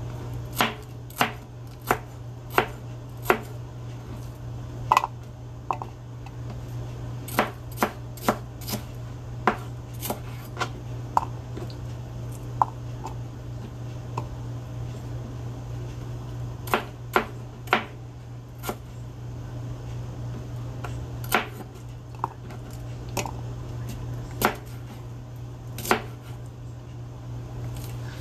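Chef's knife chopping bell peppers on a plastic cutting board. The blade knocks sharply on the board in short runs, with pauses between them, over a steady low hum.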